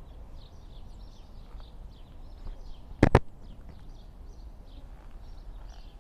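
Small birds chirping over and over, high and brief, over a steady low outdoor rumble. Two sharp knocks close together about three seconds in.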